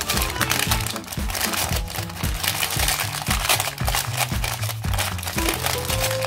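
Soft white tissue paper crinkling and rustling as hands unwrap it, over background music with a steady bass beat.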